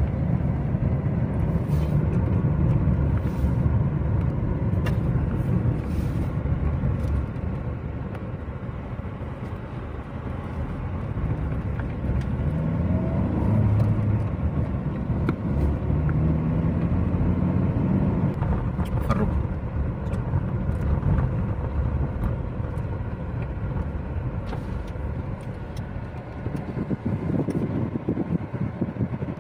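Car driving, with engine and road noise heard from inside the cabin. The engine note shifts up and down a few times midway.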